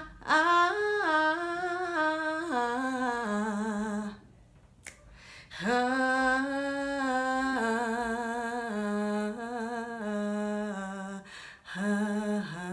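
A woman singing an unaccompanied R&B vocal riff on the word 'you', without words, her pitch stepping down through quick notes and settling on a lower note with vibrato. She sings it in three phrases, pausing about four seconds in and again near the end.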